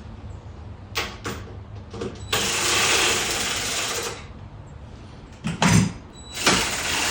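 A power tool running in two bursts of about two seconds each while skid-plate hardware is fastened, with a few sharp clicks before the first burst and a heavy knock between the two.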